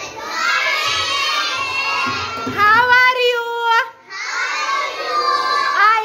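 A class of young children singing together in unison, breaking off briefly about four seconds in and then going on.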